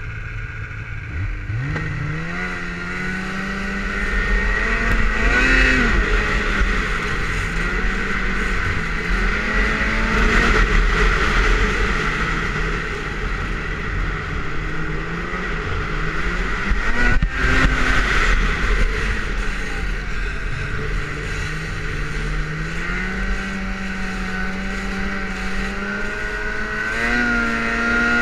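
Snowmobile engine running under throttle while riding, its pitch climbing and easing off again several times as the machine speeds up and slows. A steady high whine runs above it, with wind rumble on the microphone underneath.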